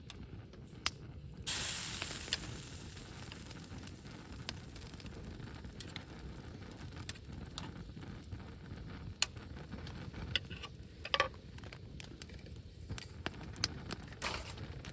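Wood campfire crackling, with scattered sharp pops of burning wood over a steady low rumble of wind. About a second and a half in a sudden hiss flares up and fades over a couple of seconds.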